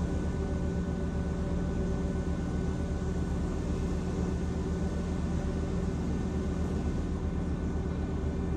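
Conveyor car wash tunnel equipment running: a steady low hum with a few constant motor tones over an even hiss.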